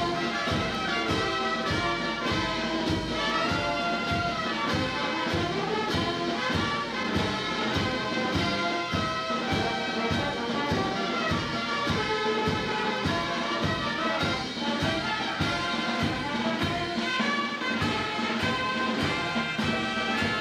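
Brass band music: trumpets and other brass playing held melodic notes over a steady bass drum beat.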